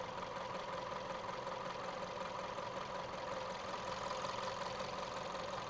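VW Golf 1.2 turbocharged petrol engine idling steadily, an even hum with no revving.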